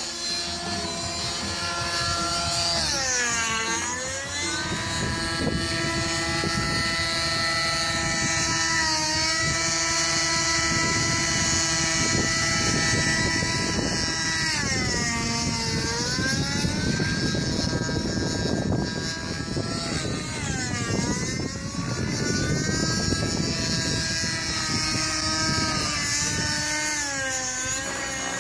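Two-stroke nitro glow engine and rotor of a TSA Infusion 600N model helicopter running at high revs in flight. Its pitch dips briefly and recovers about five times as the rotor is loaded through aerobatic manoeuvres.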